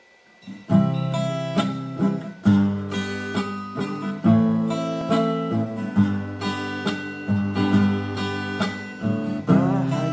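Acoustic guitar strummed in chords, starting about a second in and struck roughly once a second.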